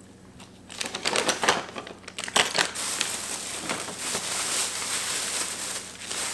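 Thin black plastic bag crinkling and rustling as hands rummage through it: a few sharp crackles about a second in, then continuous rustling.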